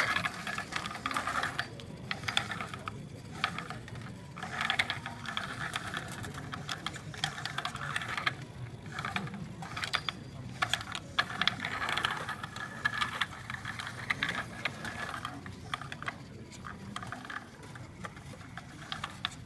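Small electric gear motors of a homemade wheeled robot whirring as it drives across a wooden floor, with frequent clicks and rattles from its frame.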